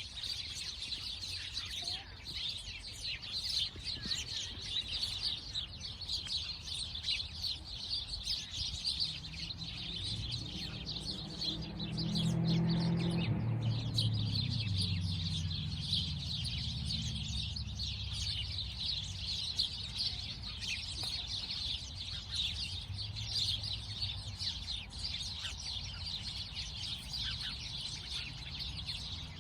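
A flock of sparrows chirping continuously in a dense, overlapping chatter. Partway through, a low rumble swells, is loudest near the middle and fades away again.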